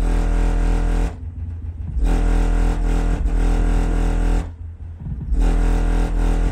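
Deep bass notes from a Skar Audio SDR-1X12D2 single 12-inch subwoofer in a loaded enclosure, heard from outside the vehicle's rear hatch. There are three long held notes, each cut by a short pause about a second in and again after about four and a half seconds.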